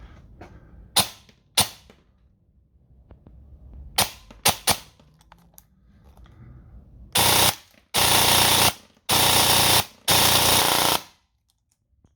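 Airsoft electric gun (AEG) test-firing: about five single semi-auto shots, then four short full-auto bursts of under a second each.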